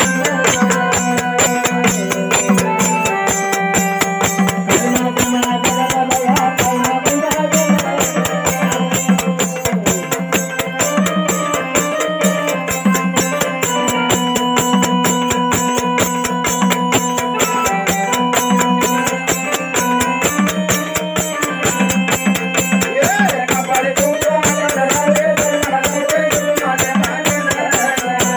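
Marathi gondhal folk music: fast, continuous beating on sambal drums with a jingling rattle, under a melody of long held notes.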